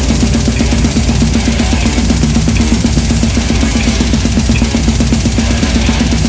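Acoustic drum kit with Arborea cymbals played hard in a fast heavy-metal pattern: a rapid, unbroken run of bass drum and snare strokes with cymbal crashes over the top.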